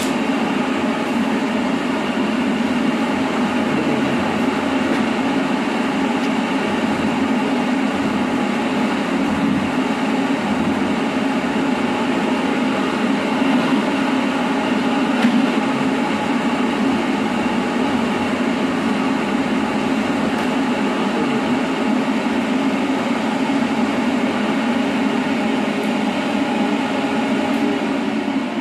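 Inline centrifugal duct fan running steadily: an even rush of air over a constant motor hum, easing off at the very end.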